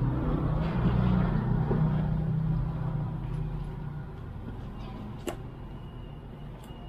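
A motor vehicle's engine hums nearby and fades away over a few seconds. A single sharp click comes about five seconds in.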